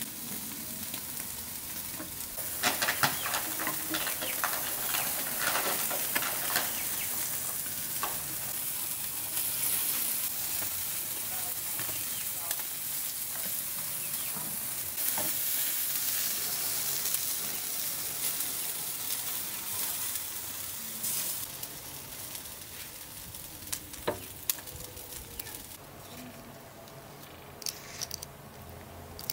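Food sizzling on a hot grill grate: thick crackling for several seconds, then a steadier sizzle that fades away over the last third, with a few sharp pops.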